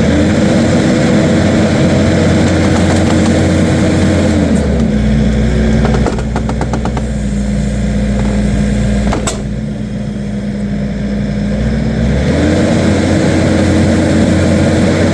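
Skid steer engine running hard, its pitch dropping about four and a half seconds in and rising again near the end. A quick run of clicks comes around six to seven seconds in, and a single sharp knock a little after nine seconds.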